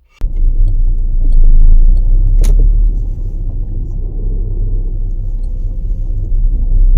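Car driving, heard as a steady low rumble of engine and road noise, with one sharp click about two and a half seconds in.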